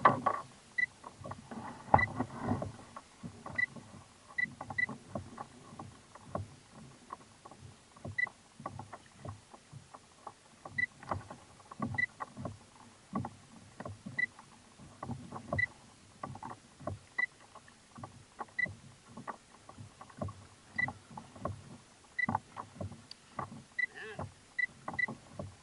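Irregular small knocks and clicks on a kayak as fishing hook and line are handled, with water lapping against the hull. Faint short high pips recur every second or so.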